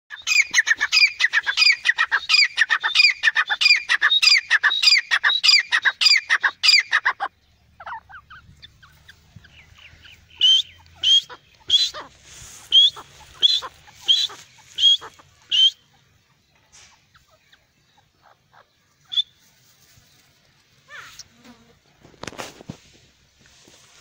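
Grey francolin calling: a loud, fast run of repeated ringing notes, three or four a second, for about seven seconds. After a short pause comes a slower series of about eight sharp, higher single notes, roughly one and a half a second, before it falls quiet.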